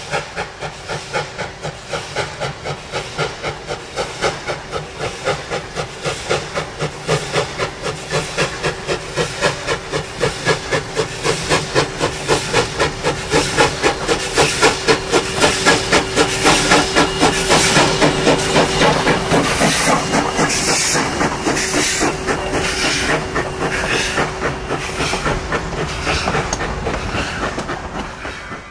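Steam locomotive working its train, the exhaust chuffing in a quick, even beat with hissing steam. The chuffs grow louder as it draws near and passes, then fade.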